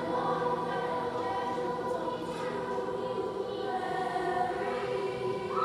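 Middle school chorus of mixed voices singing together, holding long sustained notes.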